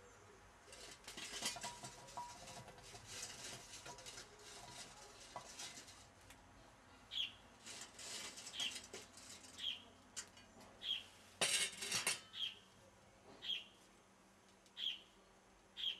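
Lit charcoal briquettes clattering and scraping as they tumble from a chimney starter onto a cast-iron Dutch oven lid, with a shorter, louder clatter later on. A bird chirps about once a second through the second half.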